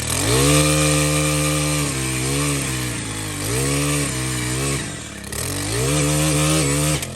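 Small gas engine of a post-hole-digging auger boring into a tree stump. It revs up and eases back four times, then cuts off sharply near the end.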